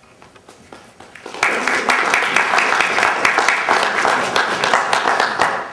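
Audience applauding: a few scattered claps at first, then full, dense applause from about a second and a half in, dying away at the end.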